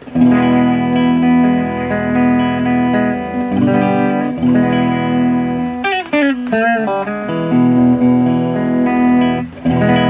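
Modified Fender Japan ST54-95LS Stratocaster-style electric guitar played through an amp with its Fender Mid Booster at full boost, ringing chords. Around six seconds in, the pitch swoops down and back up, and a new chord comes in near the end.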